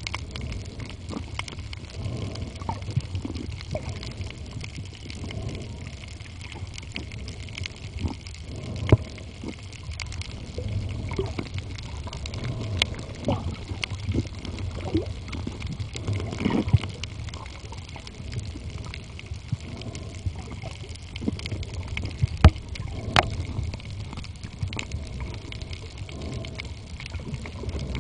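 Underwater sound picked up by a camera held below the surface on a coral reef: a steady low rumble of moving water with scattered sharp clicks and crackles, and a few louder knocks.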